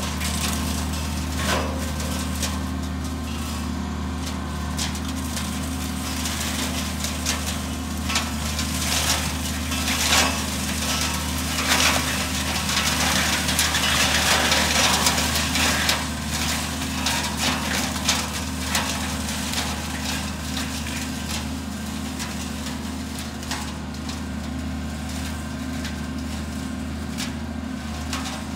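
Deutz-Fahr tractor engine running steadily under load while a McConnel hedge cutter's flail head spins and chews through hedge branches with continuous crackling and snapping. The cutting noise swells loudest around the middle, then eases.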